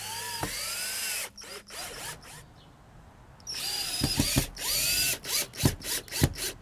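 Cordless drill driving screws through a vinyl fence post into the panel's rails. The motor whines for about a second at the start, runs again about four seconds in, then gives several short bursts near the end.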